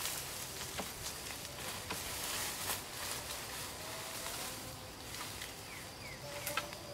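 Long cut grass stalks rustling and swishing as a bundle is spread over a bamboo roof frame as thatch, loudest a couple of seconds in, with a few sharp clicks of stalk against bamboo. Faint chirps sound in the background.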